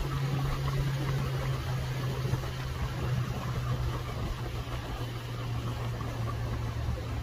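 Pontoon boat's motor running steadily while under way, a constant low hum with a rush of noise over it.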